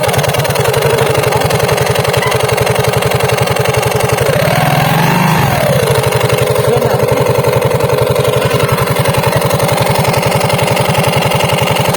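Yamaha 115 cc automatic scooter engine idling with a steady whine from a licence-plate bracket set close to the spinning CVT cooling fan, a 'ngiung' add-on that imitates a turbo. About four seconds in, the revs rise briefly and the whine rises and falls back with them.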